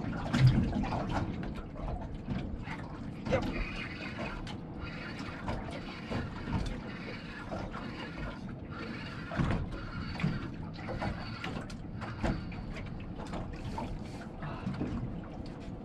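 Water lapping and slapping against a small boat's hull, with irregular small knocks and clicks.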